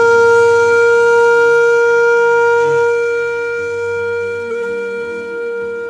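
Outro music: a single long held note, like a wind instrument, over a low hum, slowly fading in the last two seconds.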